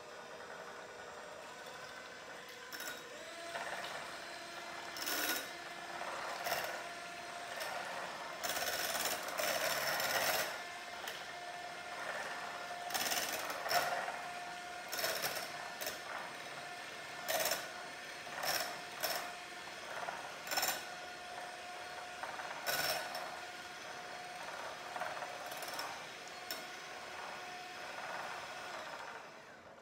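Electric hand mixer beating three eggs in a bowl. Its motor runs steadily with a whine whose pitch steps up about three seconds in, and the beaters knock irregularly against the bowl.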